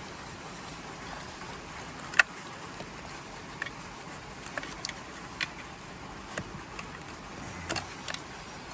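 Scattered small clicks and light rattles of plastic wiring connectors being handled and fed through the steering wheel opening, over a steady faint hiss; the sharpest click comes about two seconds in.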